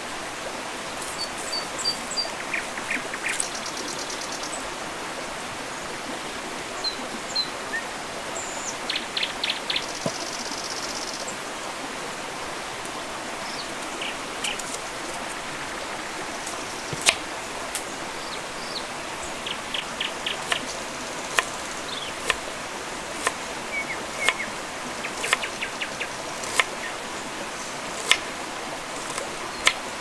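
Small kitchen knife peeling and then slicing onions on a wooden cutting board: soft scraping at first, then sharp knife taps on the board, about one a second, through the second half. Birds chirp now and then over a steady hiss.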